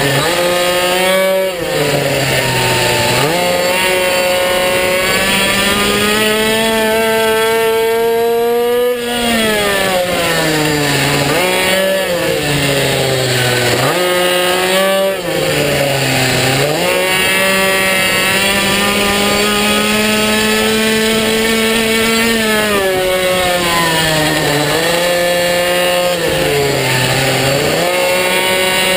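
Minibike's small single-cylinder engine heard from on board, running near the top of its revs and dropping sharply in pitch when the rider backs off for corners, then winding back up, several times over. A long steady high-revving stretch comes in the second half.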